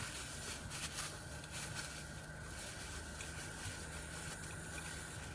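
Car air-conditioning blower running with a steady hiss and a faint constant whine, with a few faint mouth clicks from chewing.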